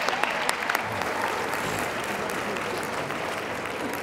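Audience applauding. The claps are thickest at first and thin out toward the end.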